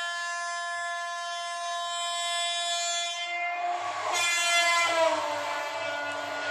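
Train horn sounding: one long steady blast, a second shorter one about four seconds in, then a lower held tone.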